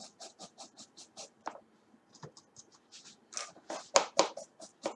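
Paintbrush bristles scrubbing back and forth over a pencil box covered in diamond-painting drills, working off surplus varnish-glue. Quick scratchy strokes come about four to five a second, with a short pause just before the middle and louder strokes in the second half.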